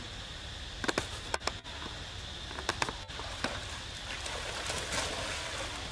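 Monkeys splashing as they swim and climb out of the water: a scatter of sharp slaps and drips, and a longer splash about four to five seconds in.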